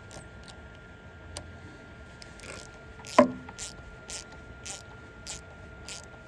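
Hand ratchet worked in short strokes, giving sharp clicks about twice a second. About three seconds in comes one loud, sharp squeak that falls in pitch.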